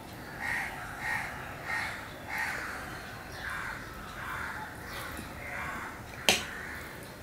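Crows cawing repeatedly, a short call about every half second to second. A single sharp click sounds about six seconds in.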